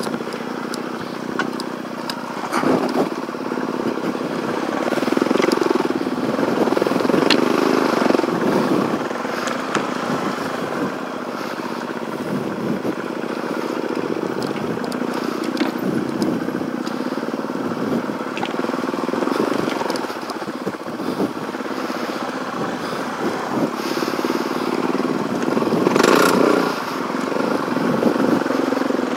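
Suzuki DRZ400E single-cylinder four-stroke dirt bike engine running on a trail ride, its note rising and falling with the throttle and louder around a quarter of the way in and again near the end, with scattered knocks and rattles from the bike over rough ground.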